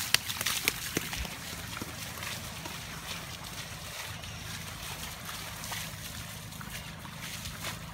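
Bare feet slapping and splashing through shallow water running along a street gutter. There are sharp splashes in the first second, then softer sloshing footsteps in the flowing water over a steady low hum.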